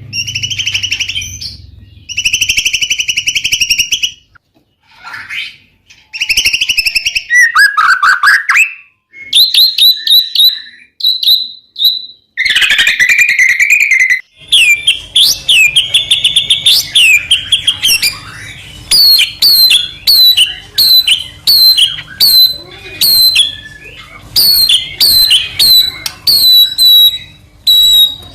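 White-rumped shama singing: loud, varied whistled phrases with short pauses between them, then in the second half a run of short, sharp repeated notes, about two a second.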